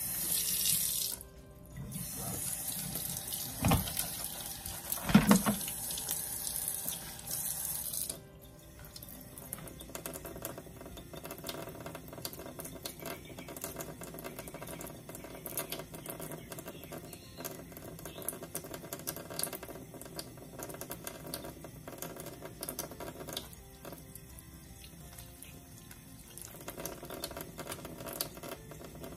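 Kitchen tap running into a stainless steel sink for about eight seconds, with two sharp knocks partway through. After it shuts off, quiet small clicks and crackles as raw shrimp are peeled and deveined with a small knife over a plastic colander.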